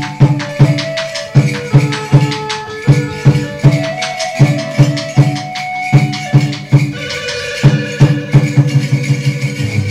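Chầu văn ritual music for hầu đồng: a plucked lute melody over a steady beat of percussion strokes, about two a second.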